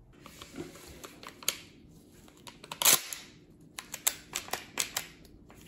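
Mossberg 500 pump-action shotgun being worked by hand: scraping and clicks as it is handled, one loud clack about halfway through, then a quick run of metallic clicks.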